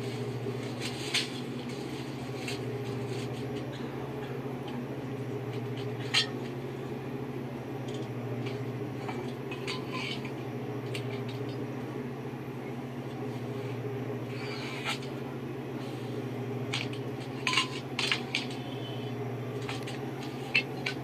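Metal pots and pressure cookers clinking and knocking now and then as they are handled on a workbench, over a steady low hum.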